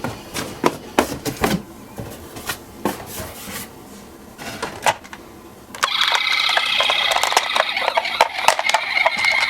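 Toy minicars clicking and knocking as they are handled and set rolling. About six seconds in, a louder, steady high-pitched rattling sound starts and carries on.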